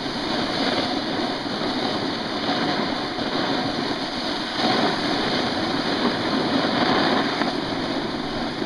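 Snowboard riding down a groomed slope: a steady scraping hiss of the board's edges on packed snow, a little louder from about halfway through.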